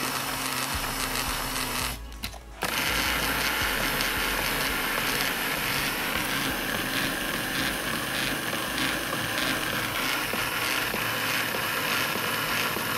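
Electric power-seat recline motor whirring as it tilts the seatback all the way back. It stops for a moment about two seconds in, then runs steadily again.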